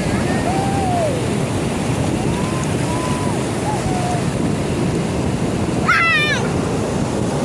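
Ocean surf breaking on a beach, a steady loud rush with wind on the microphone, with faint distant voices and one brief high-pitched shout about six seconds in.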